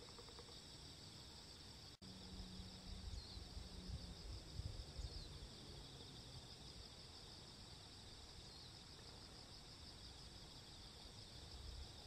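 A faint, steady chorus of insects, an even high-pitched trilling. From about two to five seconds in, a short low hum and some low rumbling rise over it.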